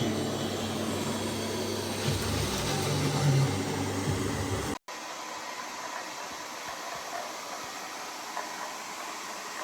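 Steady whirring airflow of a Lefant M310 robot vacuum's suction motor, heard in two clips split by a cut just under halfway. The first clip also carries a low hum that swells about two to three seconds in.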